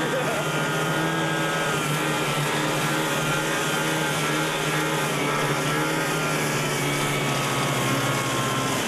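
Snowmobile engine running at a steady speed while riding across the snow, over a steady rushing noise.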